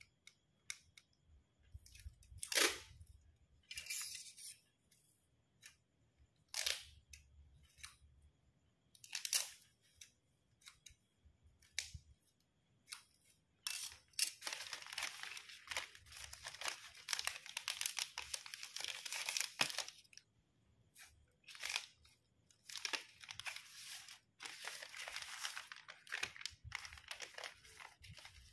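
Stiff plastic florist wrapping sheet crinkling and rustling as it is handled and unrolled. There are a few separate crackles in the first half, then near-continuous crinkling from about halfway on.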